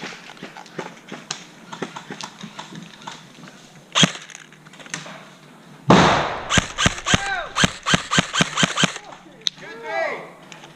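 Airsoft gunfire: a single sharp shot about four seconds in, then a rapid string of shots, about eight a second, lasting nearly three seconds.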